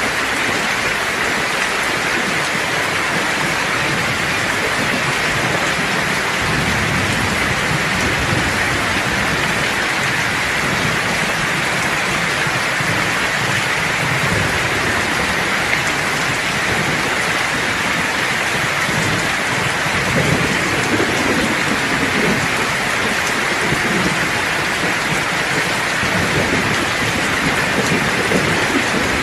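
Steady rain falling, with low rolling thunder rumbling underneath from about six seconds in, swelling in the second half.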